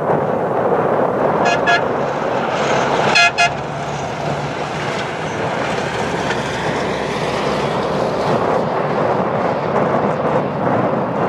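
Rally trucks' engines and tyres on desert gravel, a steady rush. A vehicle horn gives two short toots about one and a half seconds in and two more about a second and a half later.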